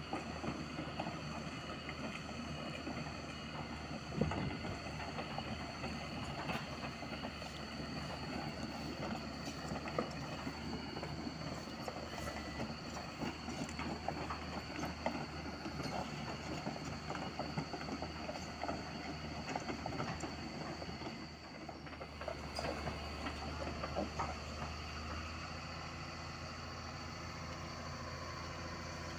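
Doosan DX225LCA crawler excavator travelling on its steel tracks: a dense, irregular clanking and clicking of track links over the steady running of its diesel engine. Near the end the track clatter dies away and the engine carries on running steadily.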